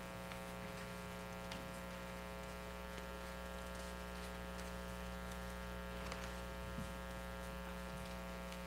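Steady electrical mains hum and buzz, with a few faint soft knocks scattered through it.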